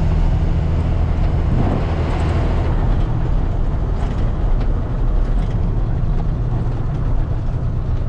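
Truck engine running and road noise, heard from aboard the moving truck. The engine note shifts about three seconds in and again later.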